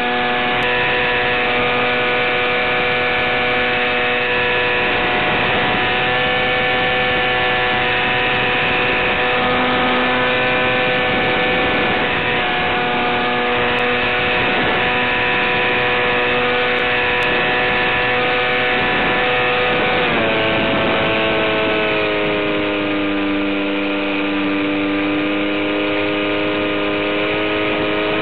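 Brushless electric motor and propeller of an FPV model plane running at steady cruise throttle, a pitched whine over hiss. About twenty seconds in, the whine drops in pitch and settles lower as the throttle is eased back.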